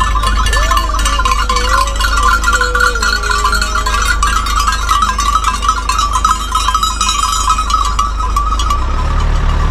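Bells on a flock of sheep clinking and jangling continuously as the sheep walk, with a sheep bleating a few times in the first few seconds, over the low rumble of a slowly moving car.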